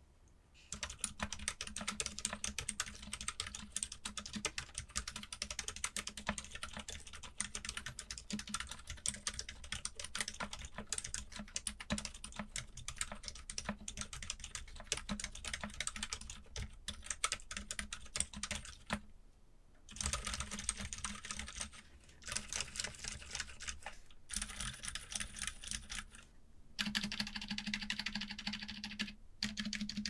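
Fast two-handed typing on a keyboard fitted with stock Gazzew Boba Gum silent linear switches in a foam- and silicone-dampened CIY Tester68 board: a dense stream of keystrokes. It runs unbroken for the first two-thirds, then comes in shorter runs with brief pauses between them.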